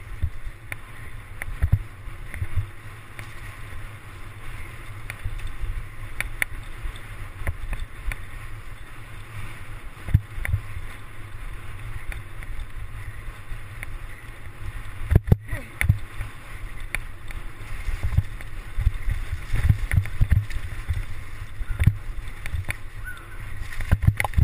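Mountain bike ridden over a rough grass-and-dirt trail, heard through a camera mounted on its handlebars: a steady low rumble full of irregular jolts and knocks from the bumps, over a hiss of tyre and wind noise. There is one sharp knock about fifteen seconds in.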